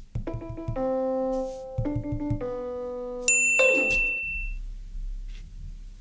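Background music: a short run of held keyboard-like notes, then a bright chime a little past the halfway mark that rings on briefly before fading.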